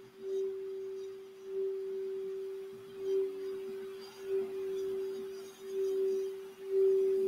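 Crystal Alchemy singing bowl tuned for the throat chakra, played by rubbing a mallet around its rim: one steady ringing tone that swells and fades every second or so.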